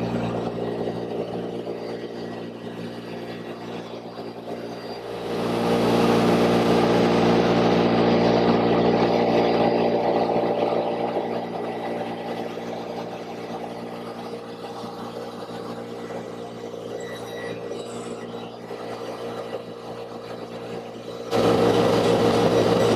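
Table saw running steadily, its note growing louder from about five seconds in while the blade cuts through wood, easing off, then jumping up again near the end.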